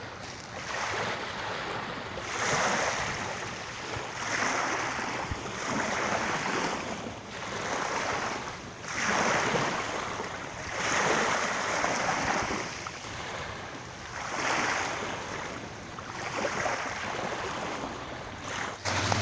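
Small waves washing onto a pebble beach at high tide, a rushing swell that rises and falls about every two seconds.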